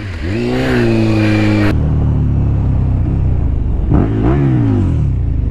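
Motorcycle engine pulling away, its pitch rising and then holding. After a cut at about 1.7 s, another motorcycle's engine runs at road speed, revving up and back down about four seconds in.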